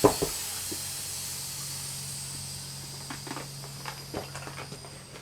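A thump as the wheel is set down on top of a toolbox, then a few light knocks and clicks, over a steady faint hiss and low hum.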